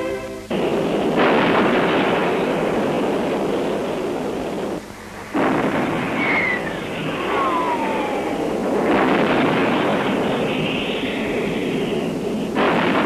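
Bombing from an air raid: a dense, steady rumble of explosions that starts suddenly, breaks off briefly about five seconds in and resumes, with a falling whistle around six seconds in.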